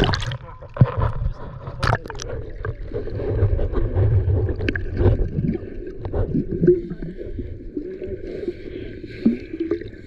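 Muffled water sound picked up by a camera just under the sea surface: a splash as it breaks through at the start, then a low rumble of sloshing, gurgling water with scattered sharp clicks.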